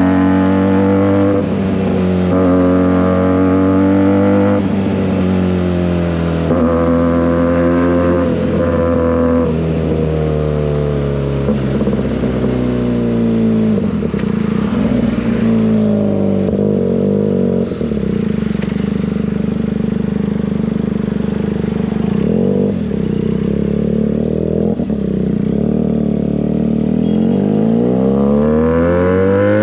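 Benelli 302S parallel-twin motorcycle engine with an SC Project exhaust, being ridden. For the first dozen seconds the engine note climbs and drops several times through the gears. It then settles to a steady cruise, and revs up again near the end.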